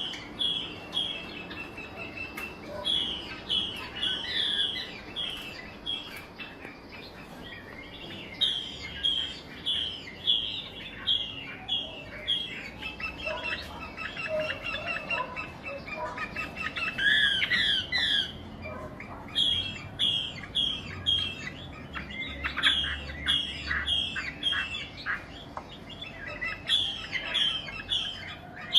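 Wambi bird singing: phrases of short, high chirps repeated quickly, broken by brief pauses.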